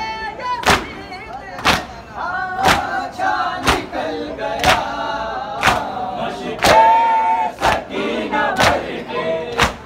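Men chanting a Muharram noha together while beating their chests in matam, a sharp slap of many hands landing together about once a second over the singing.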